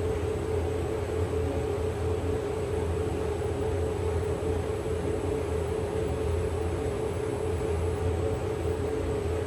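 Sinus CT scanner running: a steady machine hum with a constant mid-pitched tone over a low hum and a faint high whine, unchanging throughout.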